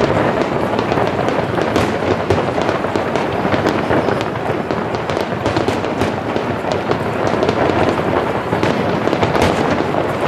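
Aerial firework shells bursting in rapid succession during a barrage. The bangs overlap into a continuous din with many sharper cracks throughout.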